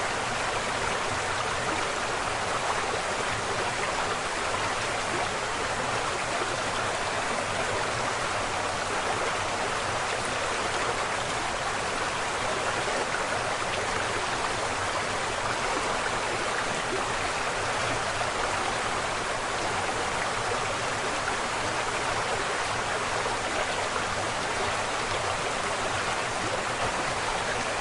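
Rushing water of a river and waterfall, a steady, even rush with no breaks or separate splashes.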